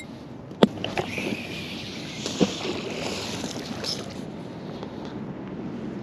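Wind on the microphone and footsteps on dry grass and leaves, with a single sharp click about half a second in.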